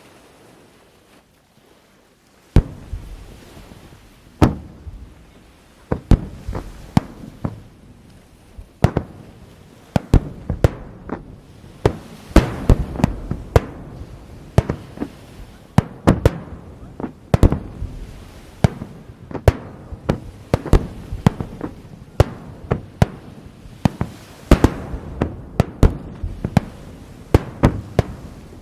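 Aerial fireworks shells bursting in a rapid barrage: a first boom about two and a half seconds in, then dozens of sharp booms in quick succession, with echoes filling the gaps between them.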